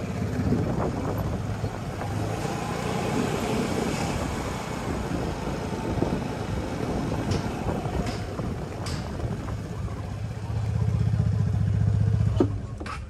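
Motorcycle engine running while riding along a road, with wind and road noise and a few knocks. The engine grows louder near the end, then stops abruptly.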